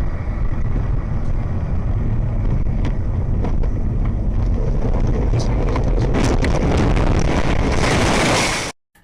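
Loud rumble of a moving vehicle with wind buffeting the microphone and scattered clicks, growing harsher and noisier over the last few seconds before cutting off suddenly.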